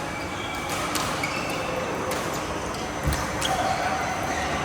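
Badminton being played on an indoor court: a few sharp racket-on-shuttlecock hits and short sneaker squeaks on the court floor, with a heavier thud of a foot landing a little past three seconds in.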